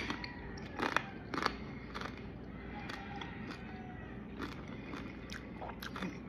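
A person chewing a mouthful of crispy roast pork: faint, scattered crunches and mouth clicks, the louder ones near the start and about one and a half seconds in, softer after that.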